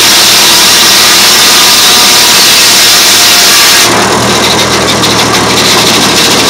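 Circular sawmill blade cutting through a log: a loud, dense sawing noise reaching high up, which stops about four seconds in as the cut ends, leaving the mill's engine and spinning blade running with a lower, steadier sound.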